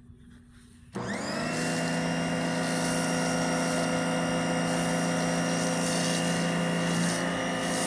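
Pressure washer starting about a second in, quickly spinning up and then running steadily with an even whine over a hiss, as it feeds a foam cannon.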